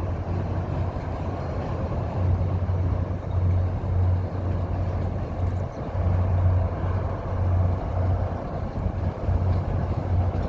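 Diesel-hauled MBTA commuter train running slowly across the drawbridge: a steady rumble under a low hum that swells and drops every second or so, with wind buffeting the microphone.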